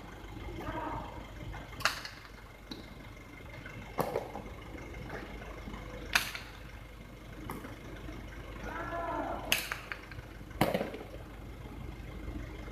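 Jai alai ball (pelota) striking the fronton wall and court during a rally: five sharp cracks, the first three about two seconds apart, then two close together about a second apart near the end.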